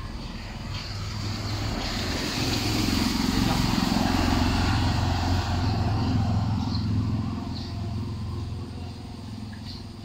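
A vehicle passing by, swelling to a peak a few seconds in and fading away again, over a steady low hum. A few short bird chirps sound near the end.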